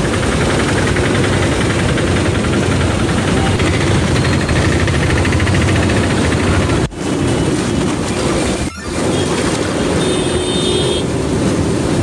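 Steady roar of a swollen, fast-flowing river in flood, churning past a bridge. It drops out briefly about seven and nine seconds in.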